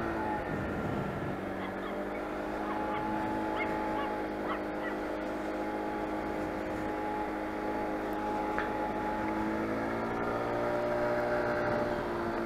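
Motor scooter's engine running steadily at cruising speed, its note shifting slightly near the end, with wind and road noise on the microphone.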